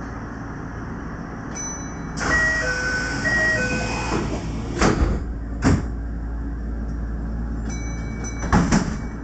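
Kintetsu 1031-series electric train standing at the platform with its equipment humming steadily. About two seconds in comes a rush of air with an alternating two-note chime, then sharp knocks about five and six seconds in and again near the end: the doors closing before departure.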